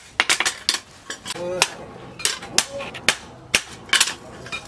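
Hand hammer striking a red-hot leaf-spring steel billhook blade on a steel post anvil, forging the blade. The blows are sharp and irregular, about two to three a second, with a quick cluster near the start.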